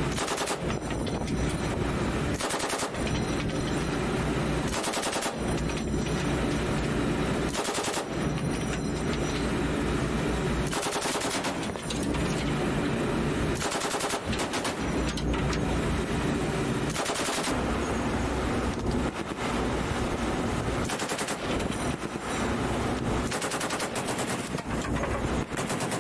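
Pedestal-mounted belt-fed machine gun firing long bursts of rapid shots, with short pauses between bursts every few seconds, over a steady low rumble.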